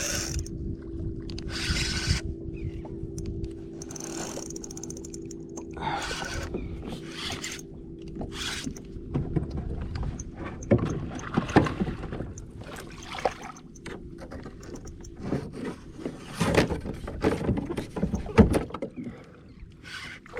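Knocking and scraping on a kayak hull with water splashing as a hooked redfish is brought alongside, over a steady low hum that stops about halfway through.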